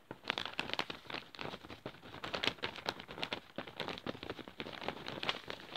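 Close-up crackling and scratching right at the phone's microphone: a dense, irregular run of small clicks in quick succession. This is typical of ASMR ear-exam sounds made by rubbing or handling things against the mic.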